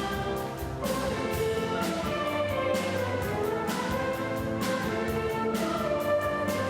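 A live orchestra playing, with held notes over a steady beat of short accents.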